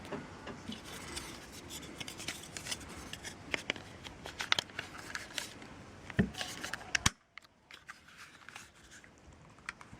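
Walther P38 CO2 air pistol being handled: a run of small metal clicks and scrapes, with two sharper knocks about six and seven seconds in.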